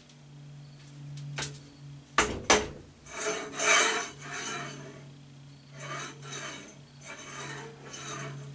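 Ball-bearing holder being pushed back and forth along a steel rail, the tight-fitting bearings rolling and rubbing on the metal in several rough strokes, with two sharp metal knocks about two seconds in. A steady low hum runs underneath.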